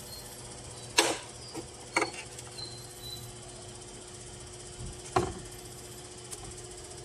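Hard plastic clicks and knocks from handling a car tail-light housing and twisting a signal-light bulb socket into it: a handful of sharp separate clicks, the loudest about five seconds in, over a steady low hum.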